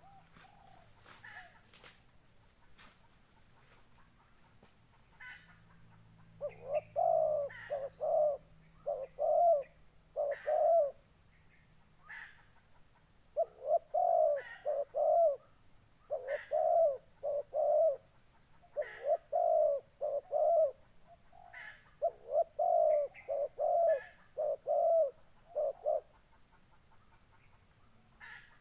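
A dove cooing in rhythmic, staccato phrases of several quick coos each, repeated about five times with short pauses between, starting after a few faint clicks.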